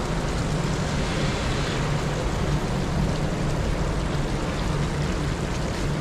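Steady rushing outdoor city ambience with a constant low hum underneath.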